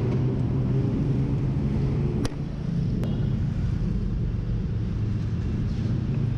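Honda scooter's engine idling with a steady low hum, picked up close by the camera's internal mic, with two sharp clicks a couple of seconds in.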